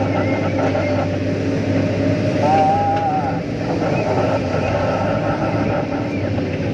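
Diesel engine of a Sany SY215 excavator running steadily, with a short held high tone about two and a half seconds in.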